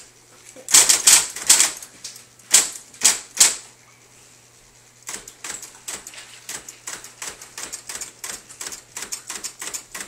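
A 1978 electric typewriter being typed on by a small child's fingers. Loud key strikes come in two clumps in the first few seconds, then a quicker, lighter run of several strikes a second through the second half.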